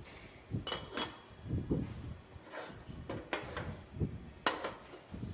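Kitchen cookware and utensils being handled: a handful of sharp metallic clinks and knocks, a couple ringing briefly, among duller bumps.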